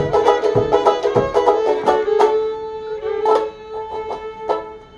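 Fiddle and banjo playing an old-time fiddle tune, with low thumps on the beat for the first second or so. The playing then thins out to a long held note that bends and fades toward the end.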